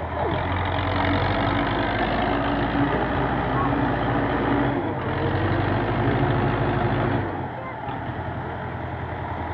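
Farm tractor's diesel engine running hard under load while hauling a loaded trailer through soft dirt, with a steady low throb. It eases off about seven seconds in.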